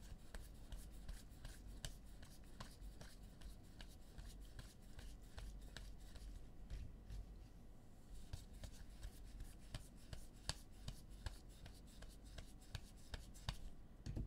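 A stack of baseball cards being thumbed through by hand, one card at a time: faint, irregular clicks and slides of card stock, coming quicker in the second half.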